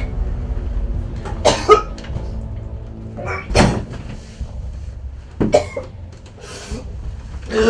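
A man coughing and gagging in four short, strained bouts, as if about to vomit after an overdose of pills, over a low droning music score.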